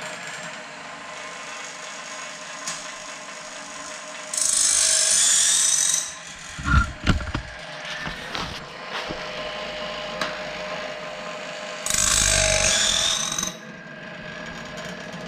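Woodland Mills bandsaw blade sharpener running: a steady motor hum, with the grinding disc twice grinding a tooth of a sawmill bandsaw blade, each grind a loud hiss of about a second and a half, about seven seconds apart. A few low knocks follow shortly after the first grind.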